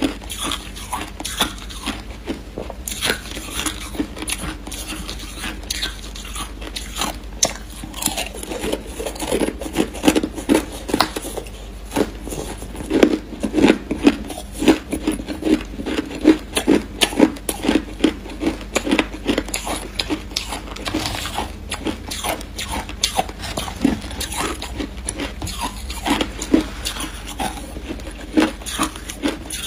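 Crushed ice being bitten and chewed, picked up close by a clip-on microphone: a continuous run of quick crunches, heaviest through the middle.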